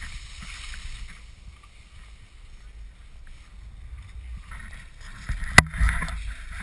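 Low wind rumble and handling noise on a GoPro mounted on a ski pole, with rustling and a sharp knock against the mount about five and a half seconds in.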